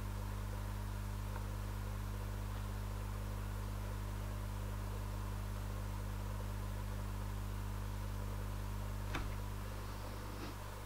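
Steady low electrical hum with hiss. A single short click about nine seconds in.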